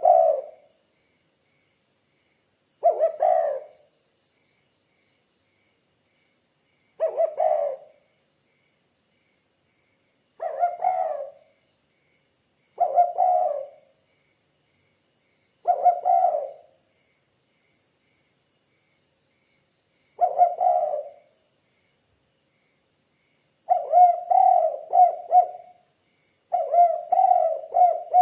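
Spotted dove (tekukur) cooing: a short repeated call every three or four seconds, with silence between calls. The last two calls run longer, about two seconds each.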